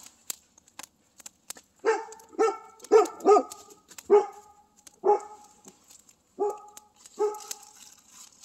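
Dog barking: about eight short alert barks that begin about two seconds in and come in an uneven run, at something in the woods that the owner takes to be more than likely a squirrel. Faint crinkling of a plastic bag before the barks.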